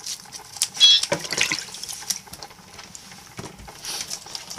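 Wet scraping, clicking and splashing of freshly caught fish being handled and cleaned with a knife over a basin of water. A brief high squeak about a second in is the loudest sound.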